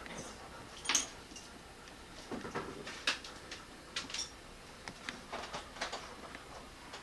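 Scattered knocks, clicks and rustles of debris and broken glass being moved and stepped on in a storm-wrecked house, with one sharper clatter about a second in.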